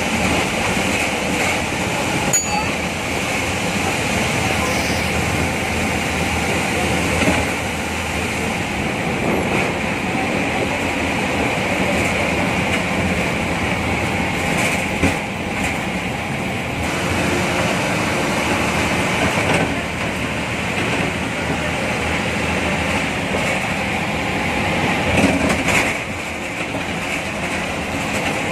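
MSRTC bus's diesel engine running under way, heard from inside the driver's cabin, with road noise and an occasional knock or rattle from the bodywork.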